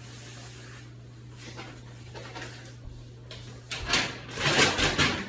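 Plastic wrappers and packaging crinkling and rustling as they are handled and gathered up, loudest in a burst of crackling during the last second and a half, over a steady low hum.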